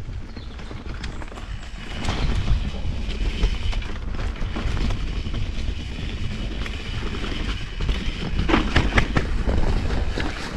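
Mountain bike riding down a rough dirt trail: a steady rumble of tyres on the ground and wind on the microphone, with the bike's chain and parts rattling. A cluster of sharper knocks comes near the end.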